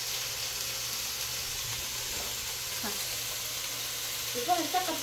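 Steady hiss with no distinct knocks or cuts, and a short bit of voice near the end.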